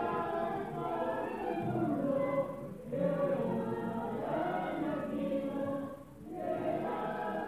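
A group of voices singing a hymn together in long phrases, with brief pauses between phrases about three and six seconds in.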